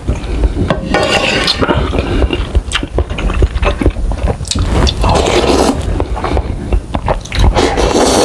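Close-miked slurping of instant noodle soup off a wooden spoon, heard as several long wet slurps with short clicks between them.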